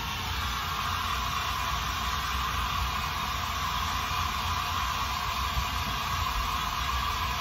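Handheld hair dryer blowing steadily, drying brushed-on latex mold builder to a tacky finish, with a low steady hum from a furnace underneath.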